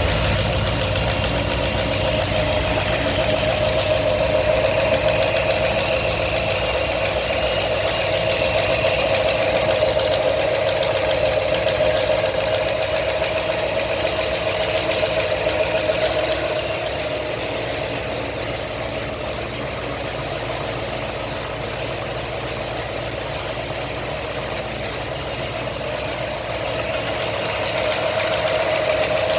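New 347 crate V8 engine running steadily at idle with a knock, which the owner is chasing in the fresh engine. It grows a little quieter past the middle and picks up again near the end.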